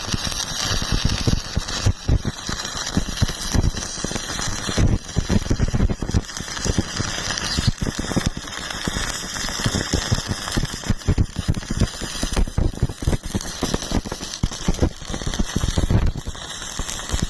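Electric welding arc burning steadily, a dense continuous crackle of small pops.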